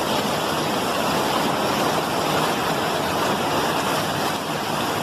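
Flash-flood torrent of muddy water rushing down a street: a steady, even rush of churning water.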